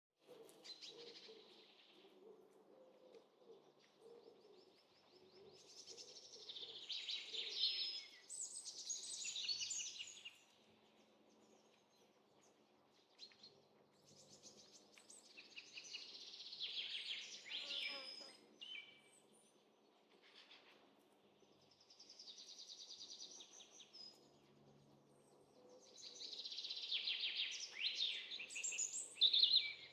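Repeated bouts of high-pitched chirping and twittering animal calls, each lasting a few seconds, over a faint steady background noise.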